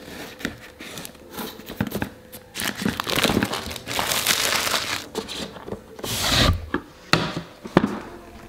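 Clear plastic wrapping crinkling and tearing as it is pulled off a cardboard product box, in several stretches, the longest about three seconds in, with a sharp knock near the end.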